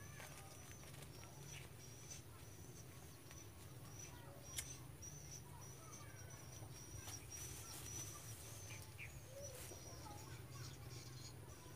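Quiet outdoor ambience: a high insect chirping in a steady run of short pulses, with a few faint bird chirps and a low steady rumble underneath. A single sharp click comes about four and a half seconds in.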